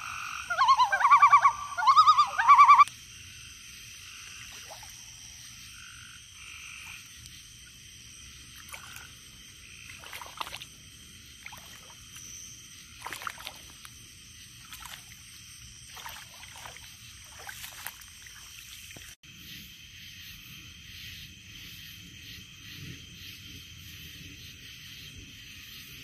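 A frog calls loudly close by for about the first three seconds, a run of wavering pitched croaks. After that a faint, steady summer-night chorus of frogs and insects goes on, with scattered soft rustles in the wet grass.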